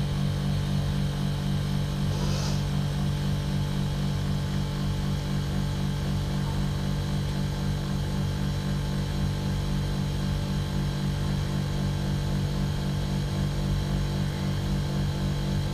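Outdoor unit of a TCL ductless split air conditioner in its defrost cycle: the compressor running with a steady low hum while the outdoor fan is stopped.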